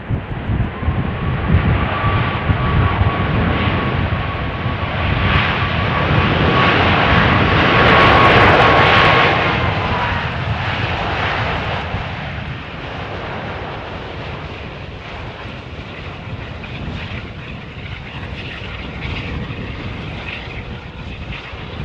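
Boeing 777-200ER airliner's jet engines on the landing roll: a loud roar with a steady whine that swells to a peak about eight seconds in, then eases off as the jet slows.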